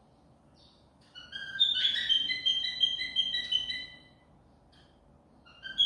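A bird chirping: a run of short, clear, high notes starting about a second in and lasting about three seconds, then starting again near the end.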